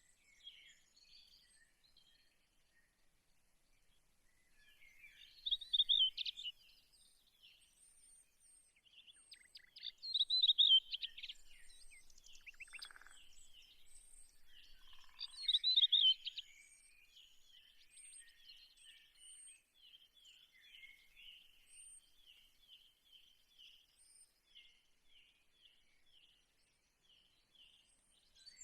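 Birds chirping and singing, with three louder bursts of song in the first half, then a long run of short repeated chirps, about two a second.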